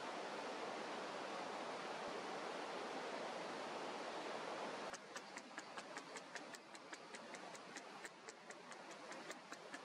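Steady rush of river rapids tumbling over a weir. About halfway through it cuts off and gives way to a quick run of short, high ticks or chirps, several a second.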